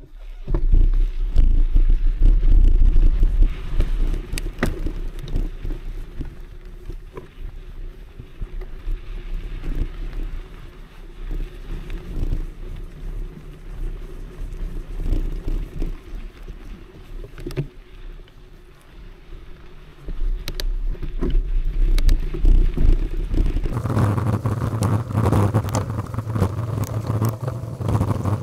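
Mountain bike ridden over a forest dirt trail, heard from an action camera mounted on the bike or rider: low wind rumble on the microphone, tyre noise, and frequent sharp knocks and rattles as the bike goes over bumps and roots. The noise grows louder and steadier for the last few seconds.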